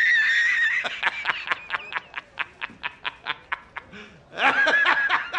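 Meme sound effect of a squeaky, high-pitched cartoon-style snickering laugh. A held high squeal, then a quick run of squeaky pulses at about five a second that fade, then another wavering squeal near the end.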